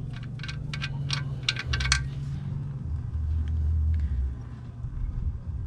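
Metal clinks and clicks of a wrench working an oil pan drain bolt loose, a quick irregular run that stops about two seconds in, over a low rumble.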